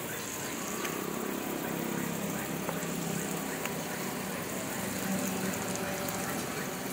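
Egg omelette sizzling in hot oil on a flat iron tawa, a steady frying hiss, with a low steady hum underneath.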